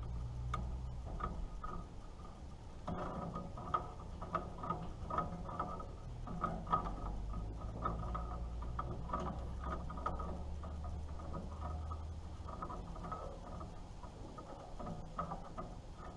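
Irregular light clicks and ticks of hands working the fuel shutoff valve and glass sediment bowl on a Farmall H tractor, over a low steady rumble that fades about twelve seconds in.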